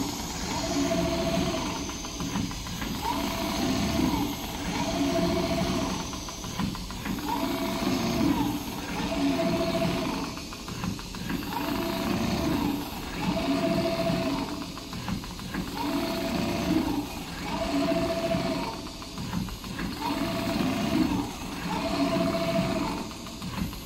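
Large-format CNC sewing machine stitching. Its running sound swells and eases in a regular cycle about every second and a quarter, with a short steady tone in each cycle.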